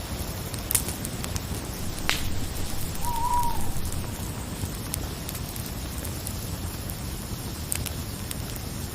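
Night forest ambience: a campfire's steady hiss with a few sharp crackles, and an owl hooting once, briefly, about three seconds in.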